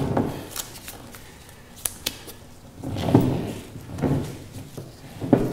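Cargo ratchet tie-down straps being worked tight to clamp a keel strip to a boat hull: scattered sharp clicks, then several short knocks of the ratchet mechanism and strap hardware.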